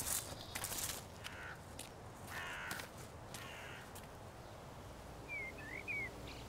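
Birds calling in churchyard trees: a few short, harsh calls in the first three seconds, then three quick rising chirps near the end.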